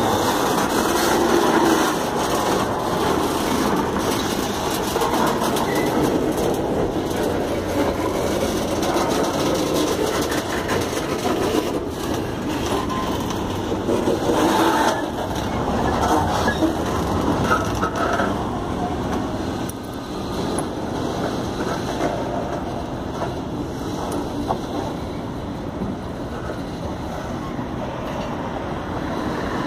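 Freight train tank cars rolling slowly past at close range: steel wheels rumbling and clacking over the rails, with many short knocks. It gets a little quieter in the last third as the end of the train moves away.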